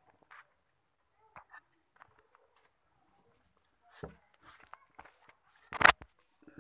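Handling noise of a homemade selfie-stick tripod being fitted together: small scattered clicks and rubs of plastic and wood, a dull thump about four seconds in, then one loud sharp knock near the end as the handheld phone filming it is jolted.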